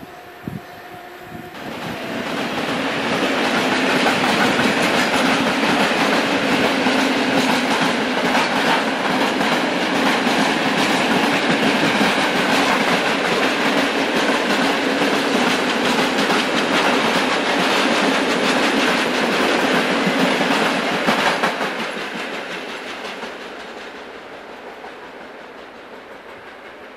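Freight train of open wagons, hauled by an electric locomotive, passing close by with wheels clattering rhythmically over the rail joints. The noise builds about two seconds in and stays loud while the wagons roll past, then falls away from about 21 seconds as the end of the train recedes.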